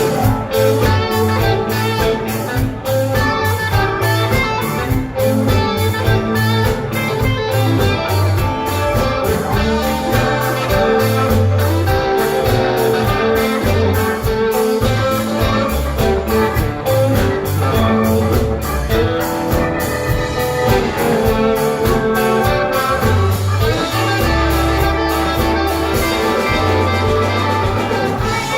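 Live blues-rock band playing an instrumental passage: guitar over bass and a steady drum beat.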